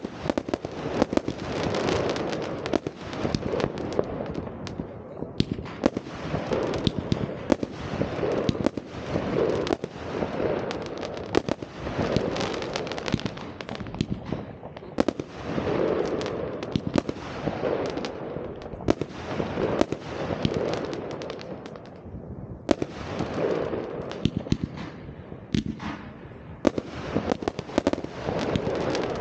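New Year's Eve fireworks: a dense, continuous barrage of bangs and crackling reports from many rockets and firecrackers going off at once, with the sound swelling and easing every second or two.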